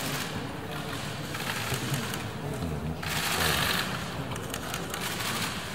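Press camera shutters clicking in rapid bursts, over a low murmur of voices.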